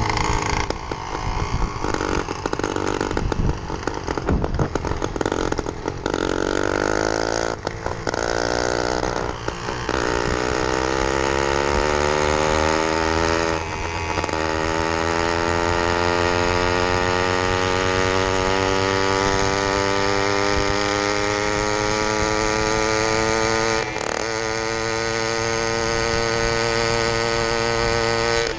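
Small two-stroke engine of a motorized bicycle running under way, uneven for the first few seconds, then pulling with its pitch climbing steadily as the bike gains speed, broken by two brief throttle lifts.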